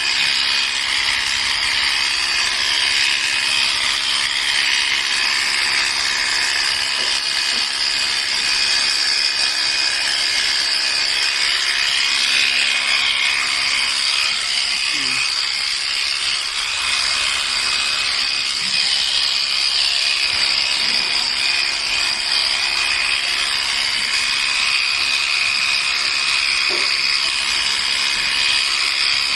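Electric sheep-shearing clippers running steadily through wool, with a constant high-pitched whine.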